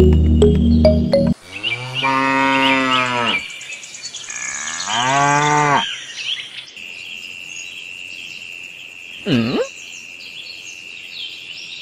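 Cow mooing twice, a long moo and then a shorter one, right after background music cuts off. A steady high-pitched chirring follows, with a brief swooping sound near the end.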